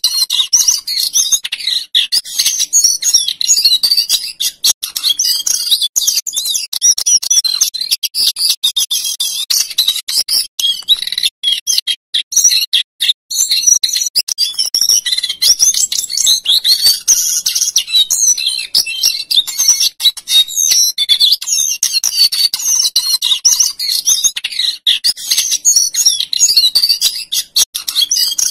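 Male jongkangan coklat (brown cingcoang) songbird singing a long, continuous, high-pitched rolling and fluting song of rapid warbles and whistled notes, with one short break about twelve seconds in.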